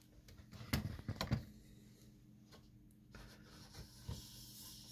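A few light knocks and clicks of metal and plastic printer parts being handled as the carriage is freed from an inkjet printer chassis, with two sharper knocks about a second in and fainter taps later.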